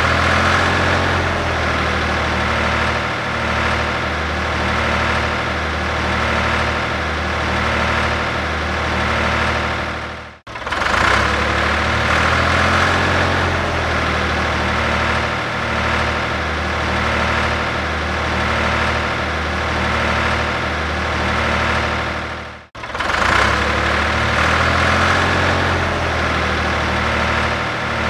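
Tractor engine running steadily at idle. The recording loops: it cuts out for an instant about ten seconds in and again about twenty-two seconds in, then the same stretch of engine sound starts over.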